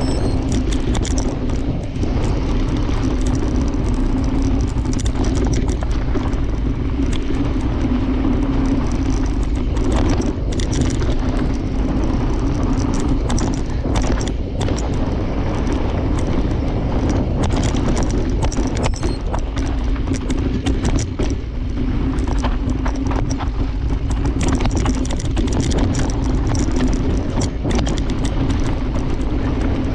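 Mountain bike running fast down a rough dirt trail: steady rush of tyre and wind noise, with frequent knocks and rattles as the bike hits bumps and rocks.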